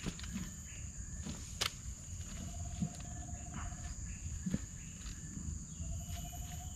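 Outdoor ambience: a steady high-pitched drone throughout, a rapid rattling trill that sounds twice, and scattered light clicks and taps over a low rumble.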